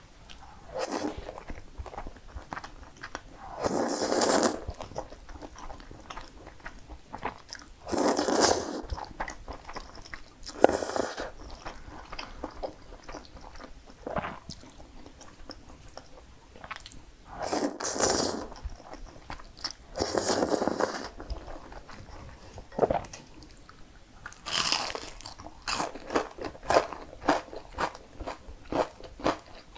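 Close-miked eating: cream pasta noodles slurped in several long pulls, with wet chewing between them. Quick crunchy chewing clicks pick up over the last few seconds.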